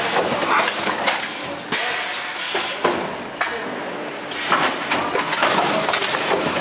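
Thermoform fill-seal packaging machine running: its pneumatic cylinders hiss as they vent air, among repeated clacks of the tooling as the sealed cup web moves through.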